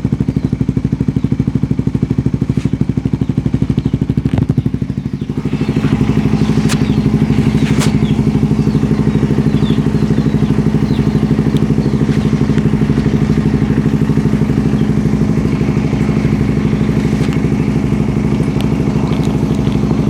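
Suzuki GSX-S150's single-cylinder engine idling steadily through an aftermarket made-to-order muffler, with a brief dip in level about five seconds in.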